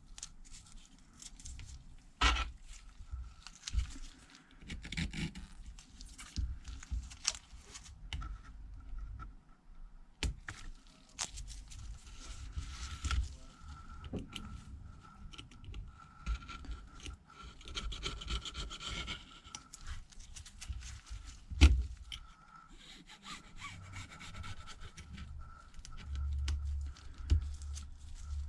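Old screen adhesive being scraped and rubbed off a Samsung Galaxy S8's frame with a small tool, in short irregular strokes with sharp taps now and then, the loudest about three quarters of the way through. A faint steady high hum runs underneath.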